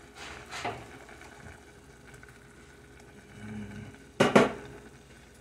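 Kitchen sounds while seasoning noodles in a pan: mostly quiet, with a brief soft rustle near the start and a short, sharp double clatter of kitchenware about four seconds in.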